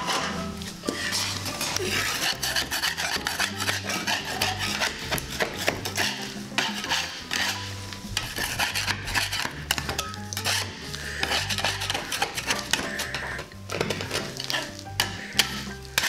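Metal putty knife scraping and rasping against a plaster-faced drywall wall in quick, irregular strokes, clearing loose plaster from the seams of a patch before it is filled. Background music with a stepping bass line plays underneath.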